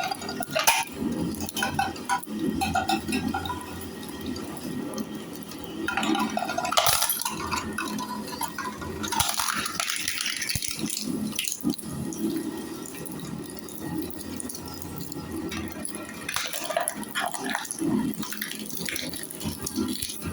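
Chopping machine running, with a steady hum under irregular rattling and rushing noise as material passes through it.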